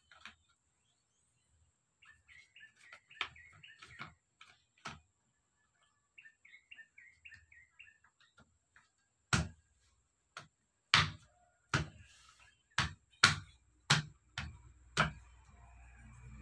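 Small birds chirping in short runs, then about nine sharp knocks, irregularly spaced, as the metal end housing of a truck alternator is knocked into place by hand during reassembly. Near the end a vehicle's engine noise begins to swell.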